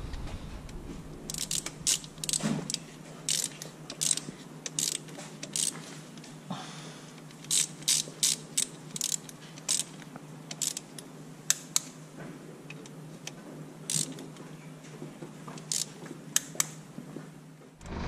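Torque wrench ratchet clicking in short irregular runs as the camshaft carrier bolts are tightened down, over a faint steady hum.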